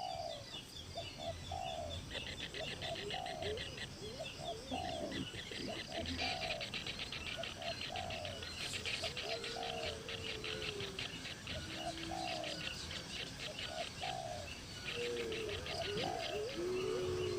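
Birds calling: a short falling call repeated about once a second, with a few longer level notes lower down, over a steady fast high-pitched chirring.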